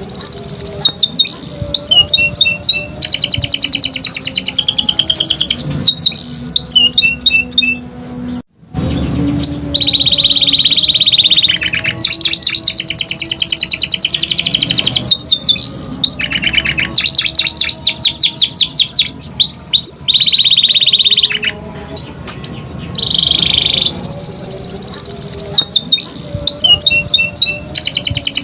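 Canary singing a loud, continuous song of fast trills and rapidly repeated chirping notes. A brief break comes about eight and a half seconds in.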